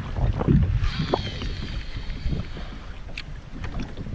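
Wind buffeting the microphone and choppy water slapping against a kayak hull, an uneven low rumble with scattered knocks. A faint high whine sounds briefly about a second in.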